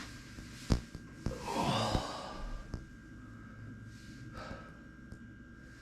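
A person breathing out heavily once, about a second and a half in, like a long sigh, with a few faint clicks around it.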